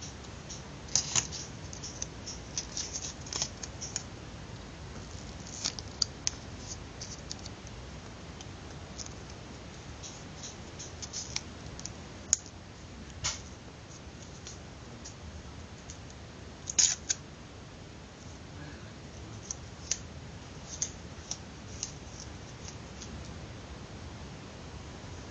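Close handling noises of a small paper tube being rolled and worked on a thin metal rod: scattered small paper crinkles and clicks, with a few sharper clicks about a second in, near the middle and about two-thirds of the way through.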